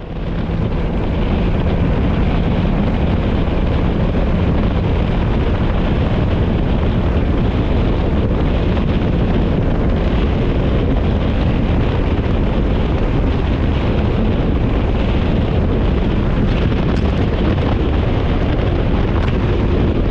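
Bass boat running at high speed, its Mercury 250 Pro XS four-stroke outboard held near 6,000 rpm. The engine is under a loud, steady rush of wind on the microphone.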